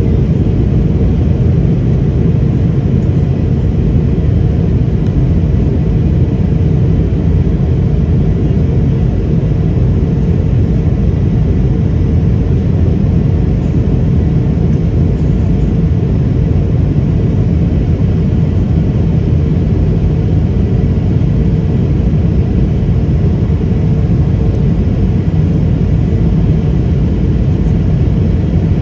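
Steady cabin noise inside an Airbus A220-300 airliner: a low rumble of airflow and its Pratt & Whitney PW1500G geared turbofan engines, with a faint constant hum above it.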